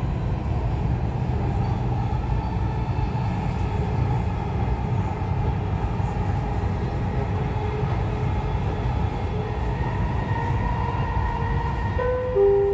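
Dubai Metro train running on its elevated track, a steady low rumble heard from inside the carriage. Near the end a two-note chime sounds, the signal before the next-station announcement.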